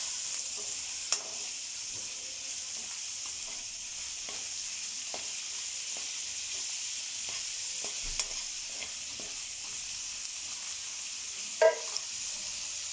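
Chopped onion sizzling in hot oil in a nonstick kadhai, stirred with a perforated steel spatula that scrapes and ticks against the pan. About three-quarters of a second before the end, one sharp knock of the spatula on the pan is the loudest sound.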